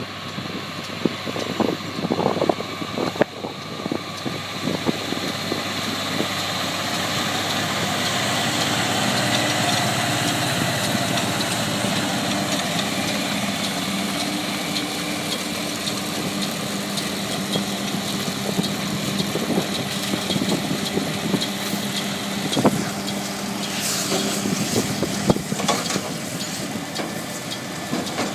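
Tractor engine running steadily while pulling a round baler through a swath of haylage, getting louder over the first several seconds and then holding. Scattered clicks and knocks come near the end.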